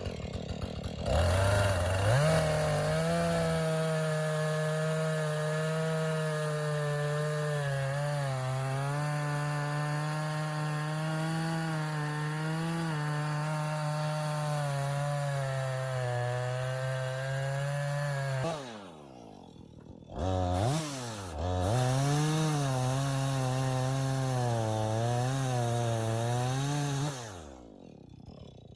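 Gas chainsaw cutting the felling notch into the trunk of a large dead spruce, the engine running under load with its pitch wavering as the chain bites. Partway through it drops back off the throttle, then revs up and cuts again before easing off near the end.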